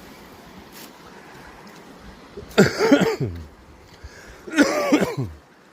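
Two short vocal sounds, each falling in pitch, about two seconds apart, over a faint steady rush of creek water.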